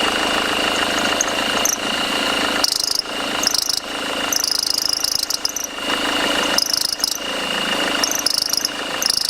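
Belt drive on a running Mercedes W211 220 CDI's OM646 diesel, chirping and squealing in repeated short bursts over a steady whine. The belt is slipping over the alternator pulley, most likely because the alternator's overrunning clutch (freewheel) is blocking.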